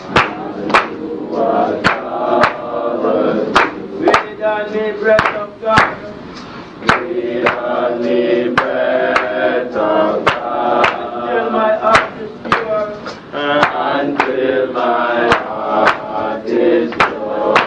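Voices chanting together, with sharp percussive strikes keeping a beat about once or twice a second.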